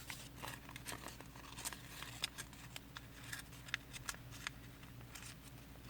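Square origami paper being folded and creased by hand: a faint, irregular string of quick crinkles and sharp little taps.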